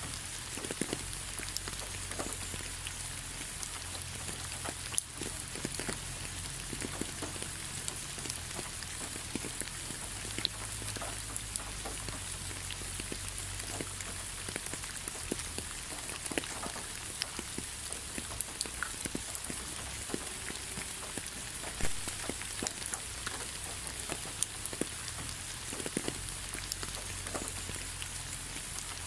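Steady rain falling, an even hiss with scattered individual drops ticking sharply through it.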